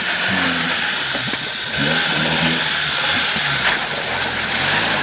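Suzuki Samurai SJ413's 1.3-litre four-cylinder engine revving up and down as the 4x4 crawls through a shallow creek, getting louder about two seconds in, over a steady rush of splashing water.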